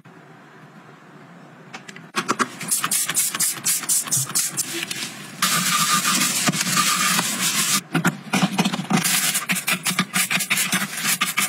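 A ceramic bathroom sink being scrubbed, starting about two seconds in: a sponge rubbing around the drain, then a stiff-bristled brush scrubbing the basin in quick, scratchy strokes.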